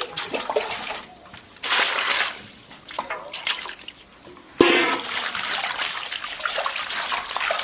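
Cold water running and splashing as pea shoots and scallions are washed by hand, in spells: a short splash about two seconds in, then steadier running from a sudden start just past halfway.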